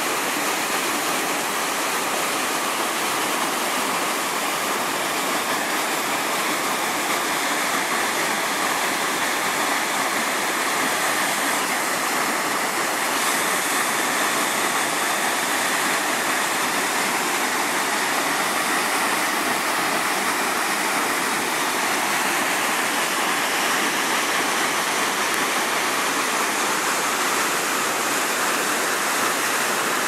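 The Lotrișor waterfall pouring down steep rock slabs into a pool, a steady, unbroken rush of water.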